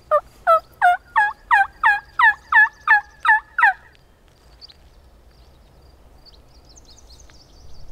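A run of about eleven turkey yelps from a hunter's turkey call, about three a second, each note breaking from high to low; the series stops about four seconds in. It is calling meant to strike a gobbler into answering.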